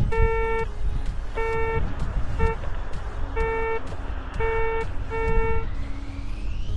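Handheld metal-detector pinpointer giving six short buzzing beeps of one steady pitch, uneven in length and spacing, as its tip is held to a handful of dug-out beach soil: it is signalling a metal target in the clump. A low rumble runs underneath.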